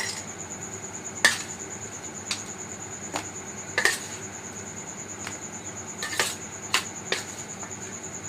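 A cricket trilling steadily in one high, even pulsing tone, while dishes and utensils clink and knock sharply now and then, about seven times.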